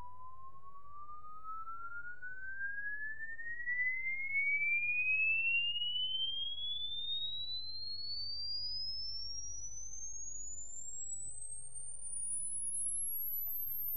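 Frequency-response measurement sweep played through a dome tweeter loaded with a horn designed to boost around 3 kHz: a single pure tone glides steadily upward from about 1 kHz to the top of hearing, loudest a few seconds in as it passes roughly 2 to 3 kHz, where the horn boosts the response.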